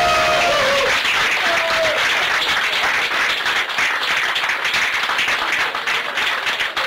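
A small group of people applauding, with a few cheering voices in the first two seconds.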